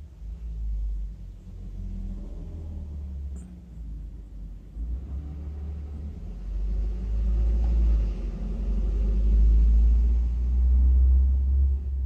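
Low rumble that comes and goes, growing louder through the second half.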